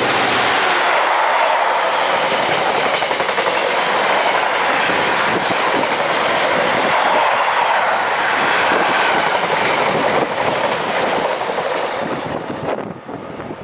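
Container wagons of an intermodal freight train rolling past: a loud, continuous rumble with wheels clattering on the rails. Near the end the noise drops away quickly as the last wagon goes by.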